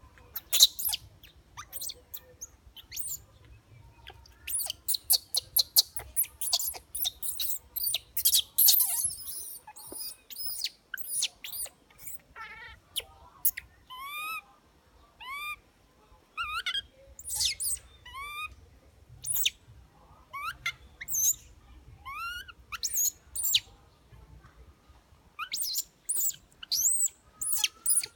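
Many short, high-pitched squeaks and rising-and-falling calls, coming in runs with short gaps, mixed with sharp clicks: an infant pigtail macaque calling.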